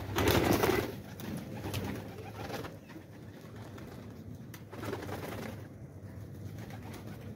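Flock of domestic pigeons cooing, with a burst of wing flapping lasting about a second at the start as a bird takes off.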